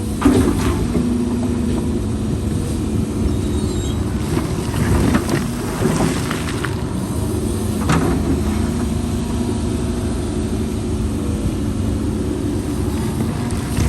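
Heavy diesel construction machinery running steadily with a low drone, with a few sharp knocks or clanks: near the start, then about 5, 6 and 8 seconds in.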